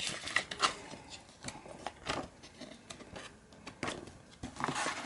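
Plastic DVD case being handled, with scattered light clicks, taps and rubbing of the plastic.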